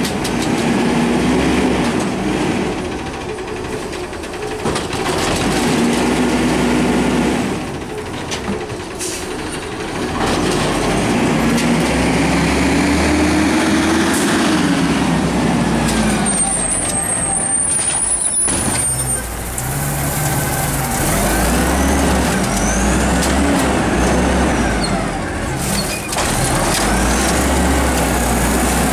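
Natural-gas-powered automated side-loader garbage truck driving up and pulling in to a curbside cart: the engine running and rising and falling in pitch as it moves, with air brakes hissing and a brief high squeal partway through.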